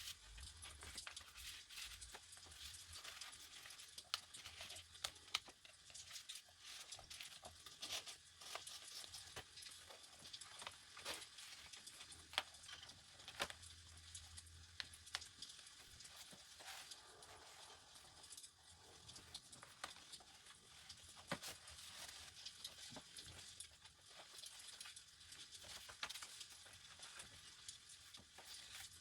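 Pages of a journal being turned and handled: soft paper rustles with many small irregular taps and flicks.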